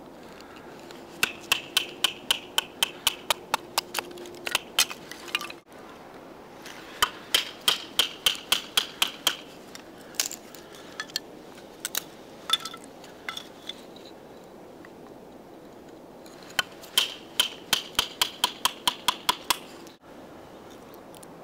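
Small knife being batoned through kindling: quick light taps of a wooden baton on the steel spine, about four or five a second, with a slight metallic ring. The taps come in three runs.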